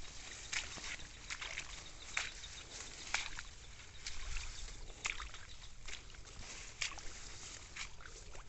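Footsteps through a rice paddy, with the rice stalks and leaves swishing against the walker in irregular strokes about once a second.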